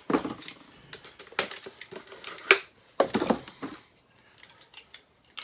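Cardboard packaging crackling and scraping as it is handled and cut with a box cutter: irregular sharp crackles, the loudest about two and a half seconds in, dying down for the last second or two.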